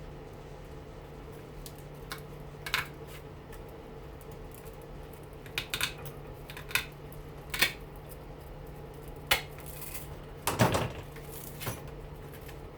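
Scattered sharp metallic clicks and snips, about seven in all, as the copper windings of a front-load washing machine motor are cut and handled, with a steady low hum underneath.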